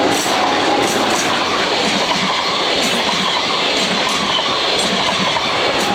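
NS ICMm intercity electric train passing close by at speed, a steady rush of wheel and rail noise with repeated sharp clicks from the wheels over the track.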